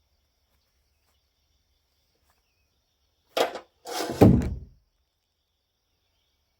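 Near silence, then two dull thumps about half a second apart a little past the middle, the second louder and longer with a deep low end.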